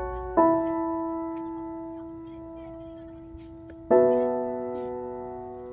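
Background piano music: slow, sustained chords, a new one struck about half a second in and another about four seconds in, each ringing out and slowly fading.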